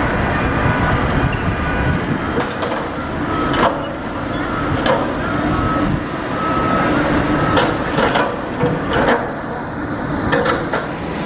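Steady vehicle rumble with faint whining tones, broken by scattered knocks and clatters that come more often in the second half.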